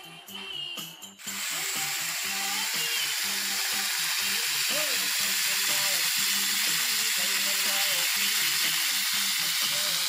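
Tandoori chicken sizzling on a hot iron serving plate: a steady hiss that starts suddenly about a second in, with voices in the background.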